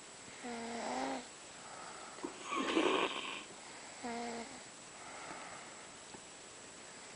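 Snoring in sleep: two short, pitched snores about half a second and four seconds in, with a louder, noisier breath between them about three seconds in.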